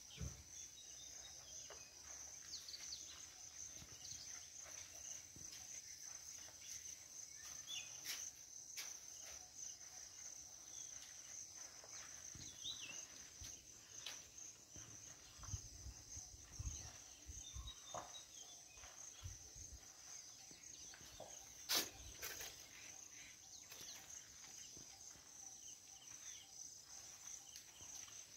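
Faint steady high-pitched drone of insects, with scattered short bird chirps. A few low rumbles come in the middle, and there is one sharp click about twenty-two seconds in.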